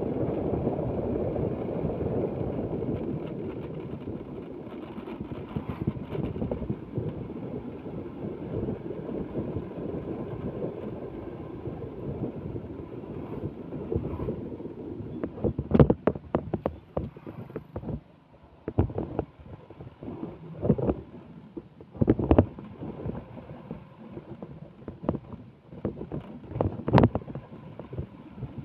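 Motorbike riding along a narrow road: a steady rush of wind and road noise over the microphone, easing a little after a few seconds, then a string of sharp thumps and gusts through the second half.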